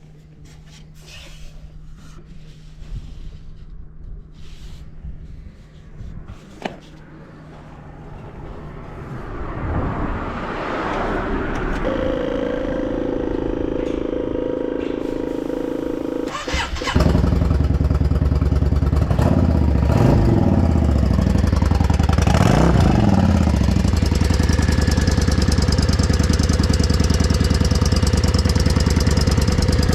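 Yamaha Drag Star 400 V-twin motorcycle being started through aftermarket big slash mufflers: the starter cranks for about four seconds, the engine catches about seventeen seconds in, and it settles into a loud steady idle with two quick throttle blips. It runs with no abnormal noise.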